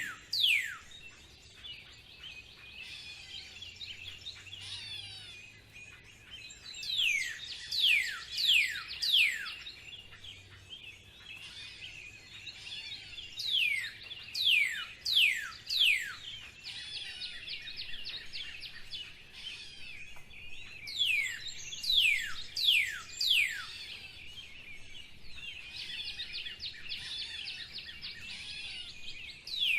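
Spring birdsong: one bird repeats runs of four or five sharp, falling whistles every several seconds, over softer steady chattering from other birds.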